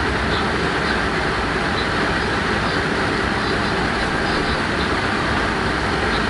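Steady running noise of a moving Class 186 electric locomotive, heard from inside the cab: wheels rolling on the rails at an even, unbroken level.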